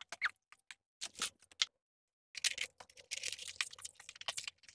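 Cardboard sleeves and plastic wrap around shipped plant pots crackling and rustling as they are lifted from a box and handled. Scattered light clicks come first, then a short break about two seconds in, then denser crinkling.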